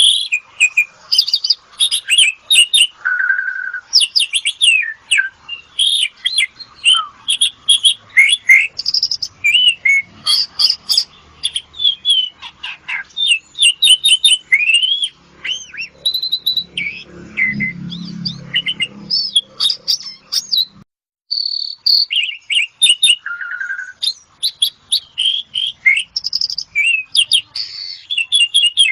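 Asian pied starling (jalak suren) singing a long, varied song of rapid whistles, chirps and sweeping notes with hardly a pause. A faint low rumble sits underneath a little past halfway, and the song breaks off for a moment about two-thirds through.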